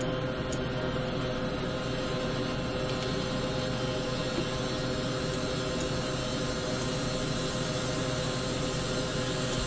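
Steady hum and hiss of background noise with a constant mid-pitched tone, unchanging throughout.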